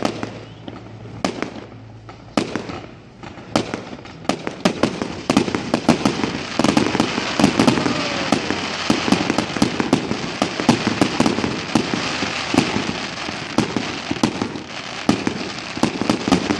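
Aerial fireworks going off: scattered bangs at first, then from about five seconds in a dense, unbroken run of rapid bangs and crackling pops.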